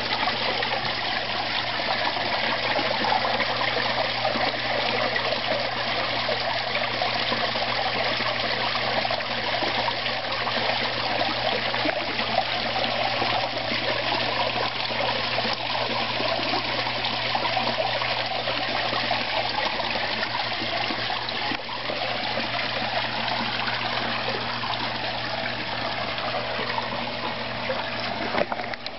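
Water spilling from a small stone waterfall into a garden koi pond: a steady, unbroken splashing trickle.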